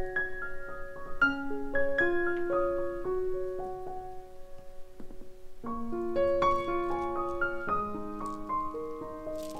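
Piano music: a melody of single struck notes over lower held notes, thinning to a brief lull about five seconds in before picking up again.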